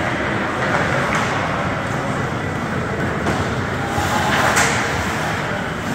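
Ice hockey rink ambience during a game: a steady wash of noise with faint distant voices and a few sharp knocks from play on the ice.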